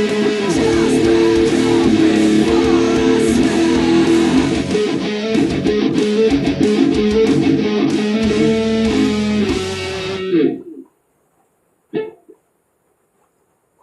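Jackson JS12 electric guitar strung with Elixir strings being played, strummed chords and riffs, stopping suddenly about ten and a half seconds in. A single short knock follows a little over a second later.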